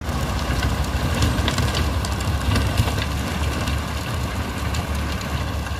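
Deutz-Fahr tractor's diesel engine running steadily under load while it drives a rear-mounted rotary tiller through dry soil: a continuous low rumble with scattered short clicks and knocks.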